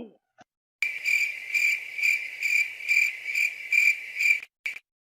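Cricket chirping sound effect: a regular run of about ten high chirps, nearly three a second, starting about a second in and stopping shortly before the end.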